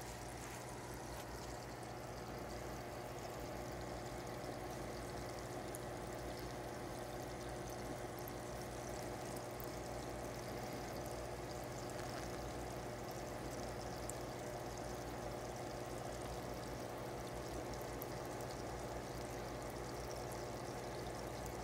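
Fish tank's water circulation: a steady trickle of moving water over a low, even hum.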